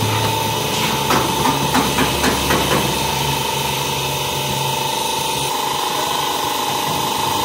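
Workshop machinery running with a steady high whine and a low hum, with several sharp knocks between about one and three seconds in.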